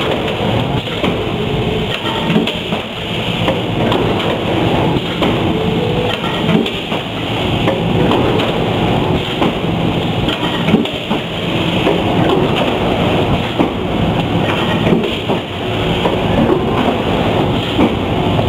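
Brown SR 2525 industrial machine running on a factory floor: a loud, steady mechanical din with frequent clanks and knocks over it.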